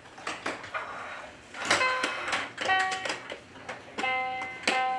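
A musical toy playing a tinny tune of short plucked-sounding notes, broken by sharp clicks.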